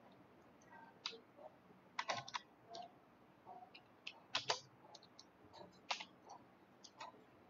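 Typing on a computer keyboard: faint, irregular key clicks with a few louder strokes.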